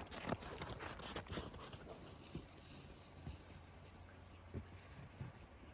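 A horse's hooves stepping on the ground: a few irregular footfalls, closer together in the first couple of seconds and sparser after.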